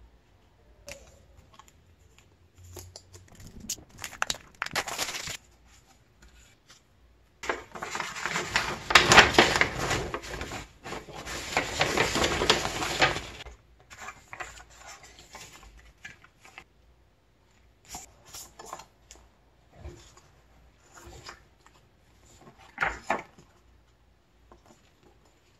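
Paper rustling and crinkling as a large folded album poster is opened out and handled. The loudest stretch runs for about six seconds in the middle, with shorter rustles and light taps of cards and paper before and after.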